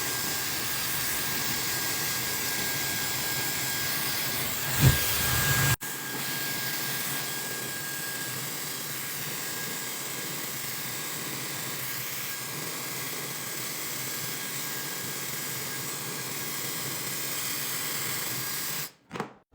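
High-speed hair dryer blowing steadily, a loud rush of air with a thin steady whine over it for the first several seconds. A brief knock comes about five seconds in, and the dryer cuts off just before the end.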